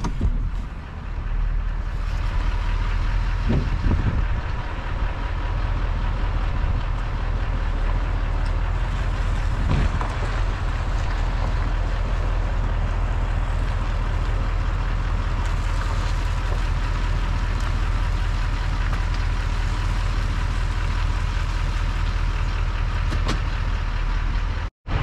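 Duramax diesel pickup tow truck engine running steadily at low speed while reversing a trailer, a constant low drone.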